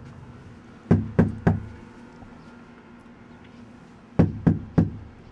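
Knuckles knocking on a panelled door: three quick raps about a second in, then three more near the end.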